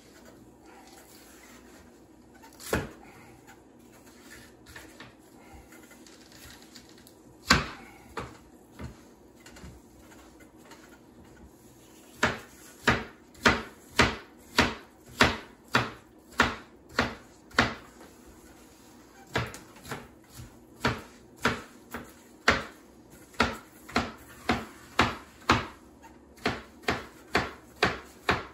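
Knife chopping onion on a cutting board: a couple of single knocks, then from about twelve seconds in a steady run of sharp chops about two a second, with a short pause in the middle.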